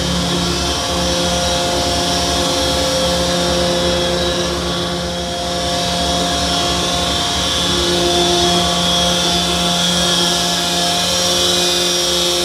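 Mack vacuum tanker truck running its engine and vacuum pump, a loud steady drone with a constant hum, pulling water up a suction hose from an underground oil/grit separator.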